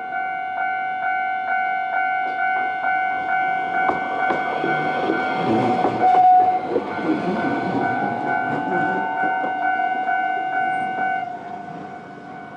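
Japanese level-crossing warning bell ringing with a steady, evenly repeating ding, stopping about two seconds before the end. Midway through, a city tram rumbles over the crossing, its wheels clattering on the rail joints.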